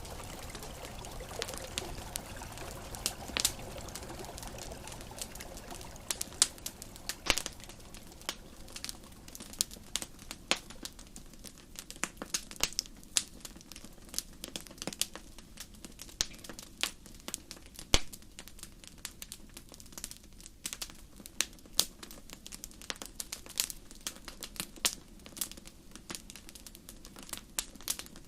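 Campfire crackling, with irregular sharp pops scattered throughout over a soft wash that fades away over the first few seconds.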